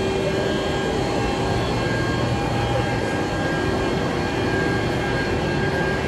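Stationary Thalys high-speed train's power car running its cooling fans and auxiliary equipment: a steady whine and hum with several held tones.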